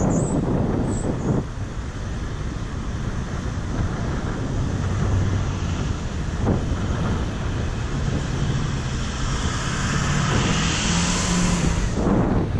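Road traffic going by under a steady rumble of wind on the microphone, with a vehicle hum throughout. A passing vehicle's hiss swells and peaks near the end.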